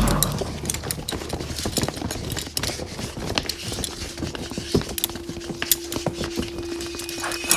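Sound-design clatter of flying debris: a dense, irregular stream of clicks and small knocks, opening on the fading tail of a loud burst, with a steady low hum tone coming in about halfway.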